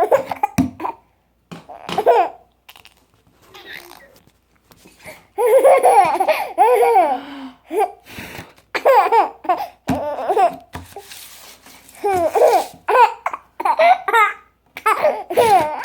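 A person laughing in repeated bursts, broken up by hiccups: short sharp catches in the breath between the laughs. There is a quieter spell about three seconds in, then long, loud laughing.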